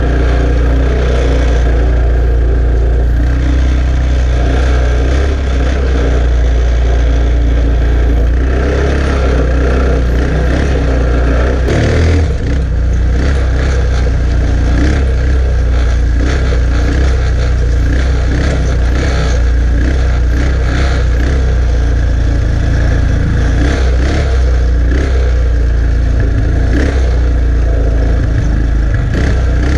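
Chinese 150 cc ATV engine running steadily under load while pulling a trailer full of firewood logs over rough ground. Short rattles and knocks come through from about halfway on.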